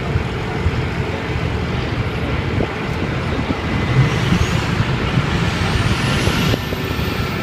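Boeing 777-300ER's GE90 jet engine spooling up during pushback, a high whine rising steadily in pitch over the last few seconds above a steady low rumble.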